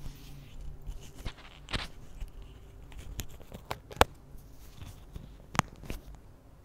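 Close handling and movement noise: cloth rustling with several sharp clicks and knocks, the loudest about four seconds in, as a person sits up and touches their chest and hair near the microphone.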